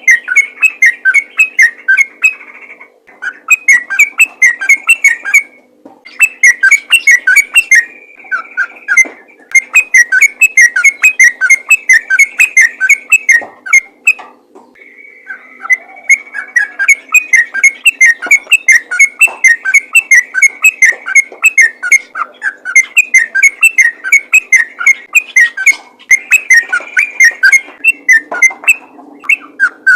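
Yellow-vented bulbul (trucukan) singing a rapid, continuous run of short notes in long phrases, broken by brief pauses about three, six and fourteen seconds in.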